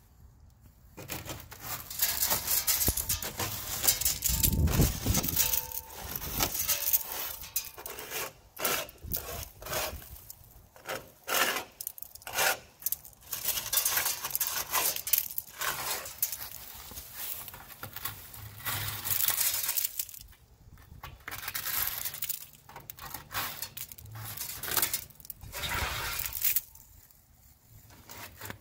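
Hand scraper scraping zebra mussels off a boat pontoon in irregular strokes, the shells crunching and clinking as they break loose and drop, with a few short pauses.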